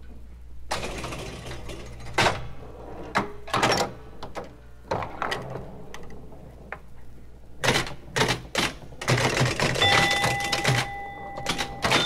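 Electromechanical pinball machine in play: a clatter of sharp clicks and knocks from flippers, bumpers and the rolling ball, starting after a short pause. Steady bell-like scoring tones ring out near the end.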